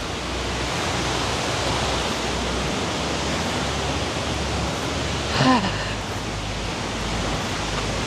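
Steady rushing of a waterfall, an even wash of falling water. A brief voice sound is heard about five and a half seconds in.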